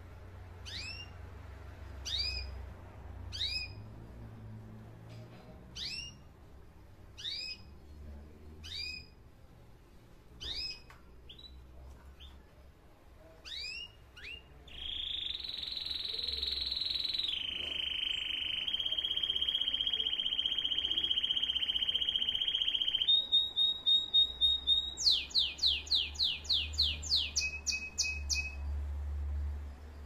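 Spanish Timbrado canary singing: short falling chirps about once a second, then a long steady rolling trill. A briefly held higher note and a quick run of falling notes come near the end.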